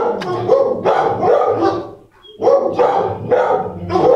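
Dog barking repeatedly and loudly, with a short break about two seconds in.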